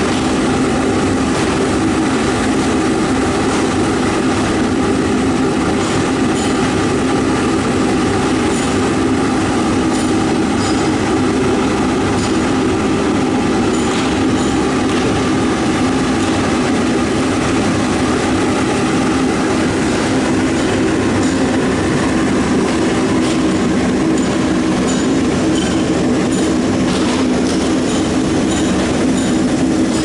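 Rotary lead-smelting furnace in operation: the burner firing into the drum and the drum turning give a loud, steady mechanical drone with a low hum, and faint high clicks now and then.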